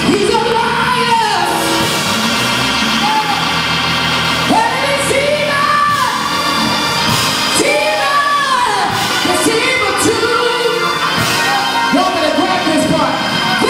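Gospel praise-break music: held organ chords under a man singing long rising-and-falling phrases into a microphone, with shouts and whoops.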